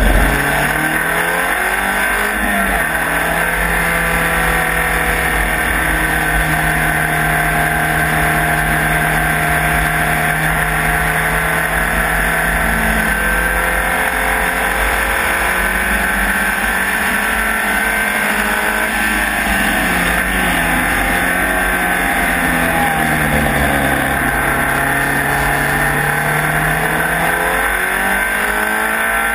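Ariel Atom race car's engine heard onboard at speed. Its note holds steady for long stretches, falls and recovers twice in the second half as the throttle is lifted and reapplied, and climbs again near the end, over a steady hiss of tyres on the wet track.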